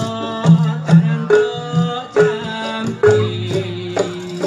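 Javanese jaranan ensemble music: kendang hand drums beat a busy, loud rhythm under a sustained pitched melody line.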